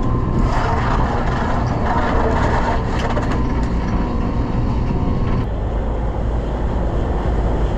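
Party boat's engine running steadily underway, a low rumble under a rushing wash of wind and water noise that eases about two-thirds of the way through.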